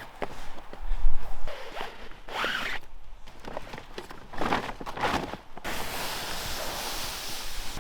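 Snowshoe footsteps crunching and swishing through deep snow at an uneven pace. About two-thirds of the way in they give way to a steady hiss.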